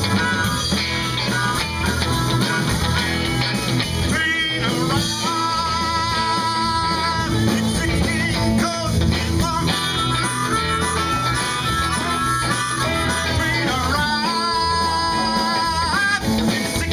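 Live blues-rock band playing with electric guitars and drums; harmonica near the start, then a man singing in phrases from about four seconds in.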